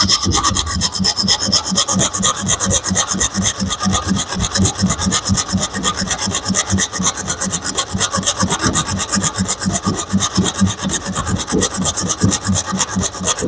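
A bare hacksaw blade, held in the hand without a frame, sawing back and forth through a metal piece clamped in a bench vise, in quick, even strokes.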